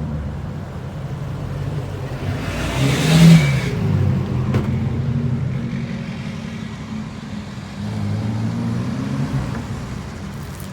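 1971 Jaguar E-type engine running, revved up once about three seconds in and then settling back to a steady run.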